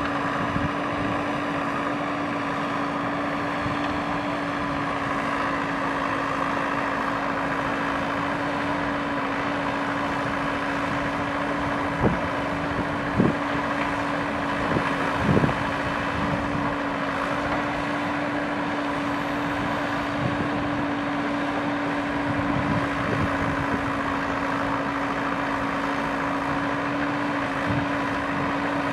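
JCB 3DX backhoe loader's diesel engine running steadily under hydraulic load as the backhoe digs and loads soil, with a constant hum. A few sharp knocks come about halfway through.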